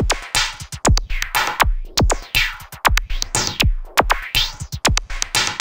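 Electronic music with a drum-machine beat: steady, punchy kick drums under sweeping synth noise.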